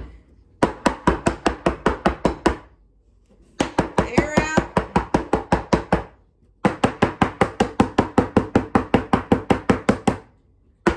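Small metal mini loaf pans of batter knocked rapidly against a countertop, about six or seven even knocks a second, in three runs of a few seconds each with short pauses between.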